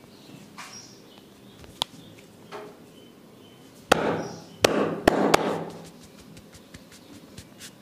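Massage percussion: a faint sharp click, then four loud, sharp hand strikes on the body in quick succession, about four to five and a half seconds in.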